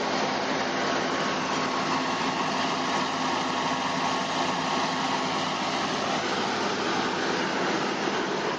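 Flood-water pump unit running steadily: an even engine drone with a constant hum under a rushing hiss.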